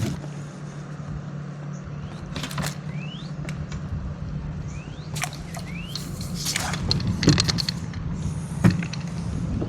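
Knocks, clicks and rattles of a small snook being landed and handled on a kayak, with a few short rising squeaks, over a steady low hum.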